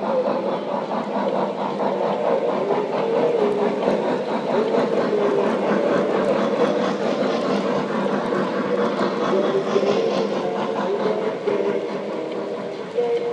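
Model steam locomotive and its boxcars running past on the layout's metal track: a steady rumbling clatter of wheels on rails with the running hum of the train.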